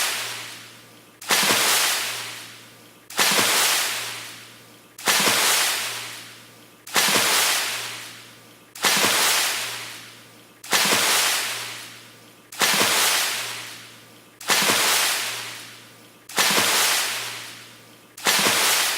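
A fast water splash, the same sudden splash repeating about every two seconds, each fading out over a second or so; about ten in all.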